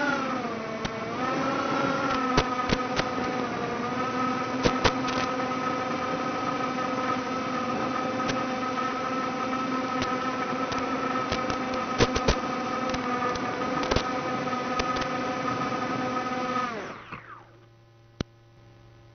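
Micro quadcopter's 1104 4000kv brushless motors and props whining steadily in flight, with a brief pitch wobble about a second in and scattered sharp clicks. Near the end the motors wind down quickly as the quad comes down, leaving only a faint low hum and a single click.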